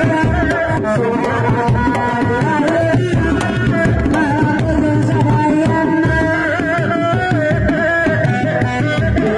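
Sundanese dogdog drums of a reak ensemble beating a repeating rhythm pattern, struck by hand and with sticks, under a wavering melody line that is held over the drumming.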